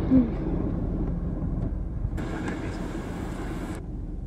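Steady low rumble of a Class 158 diesel train running along the line, heard from inside the carriage.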